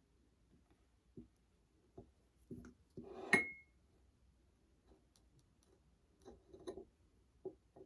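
Small handling sounds in a small room: a few soft knocks and rustles, with one sharp clink of glass or dishware that rings briefly about three seconds in.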